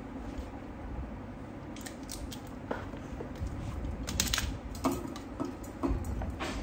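Wire cutters snipping and clicking through the ends of power cable leads, with the wires being handled: a few sharp clicks, more of them in the second half, over a steady background noise.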